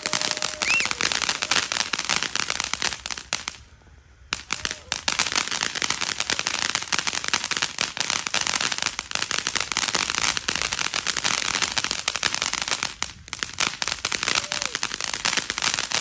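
Ground fountain firework spraying sparks: a dense, continuous crackling over a steady hiss, with a brief lull about four seconds in before it starts again.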